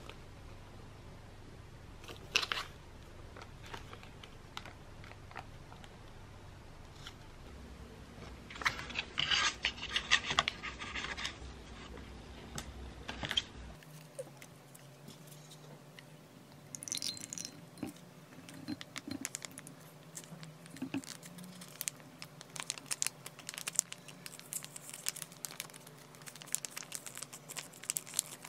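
Plastic-and-foil detox juice pouches crinkling and rustling as they are handled, densest from about 8 to 13 seconds in. After a cut, a pouch crackles as it is opened and squeezed out into a glass.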